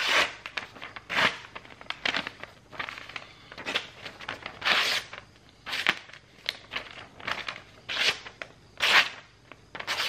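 Sharp folding-knife blade slicing through a hand-held sheet of notebook paper in a series of short, papery cutting strokes, roughly one a second. The blade cuts well but not perfectly: some strokes catch and tear rather than slice cleanly.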